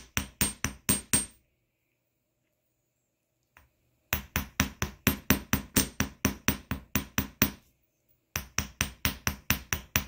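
Small jewelry hammer tapping 16-gauge copper wire on a metal bench block, about four quick metallic taps a second in three runs with short pauses between, texturing the surface of the wire.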